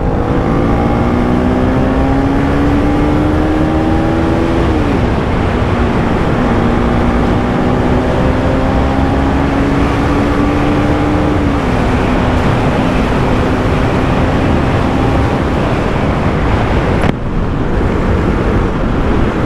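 Bajaj Pulsar NS200's single-cylinder engine pulling under way, with wind rushing over the microphone: the engine note climbs, drops sharply at a gear change about five seconds in, climbs again and drops at another shift near the middle, then holds steady and fades under the wind.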